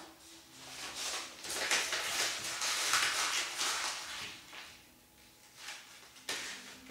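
A sheet of paper being crumpled into a ball by hand: dense crinkling and crackling that builds, is loudest in the middle, then thins out, with one sharper crackle near the end.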